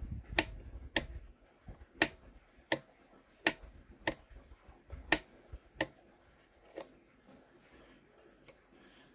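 Sharp metallic clicks from the carburettor throttle plunger and linkage of an old Sachs Stamo two-stroke engine as it is worked by hand, mostly in pairs about every second and a half as it is pushed and snaps back. The linkage had been seized and is being freed up.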